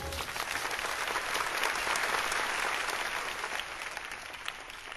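Live audience applauding in a hall, building to its loudest about two seconds in and then slowly dying away.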